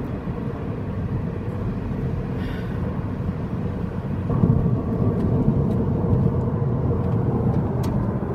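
Car driving at freeway speed, heard from inside the cabin: a steady low rumble of engine and tyre road noise with a faint hum, getting a little louder about four seconds in.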